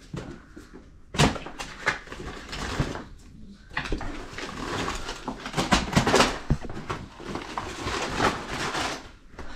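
Hockey cards being thrown around a room: an irregular run of rustles and light slaps as they scatter and land.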